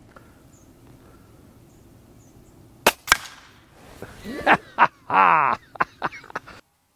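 A pre-charged air rifle, the Kalibrgun Cricket II Tactical in .25, fires once about three seconds in: a sharp crack, followed a fraction of a second later by a second crack as the pellet hits the target. A man then laughs loudly.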